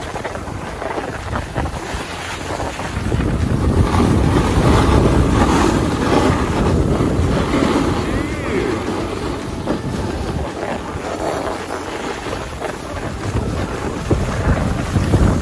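Wind buffeting the microphone while sliding down a groomed ski slope, with the hiss and scrape of moving over packed snow. It grows louder about four seconds in.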